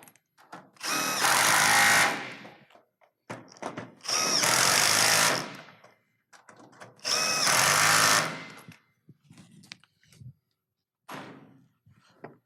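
Power driver spinning in three runs of about a second and a half each, driving home the set screws on snow-guard roof clamps, with a few light clicks and knocks of the parts near the end.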